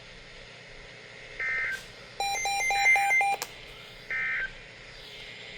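NOAA Weather Radio's EAS/SAME end-of-message code: three short buzzy digital data bursts about 1.4 s apart, closing the severe thunderstorm warning. A separate run of about six quick electronic beeps sounds over the middle burst.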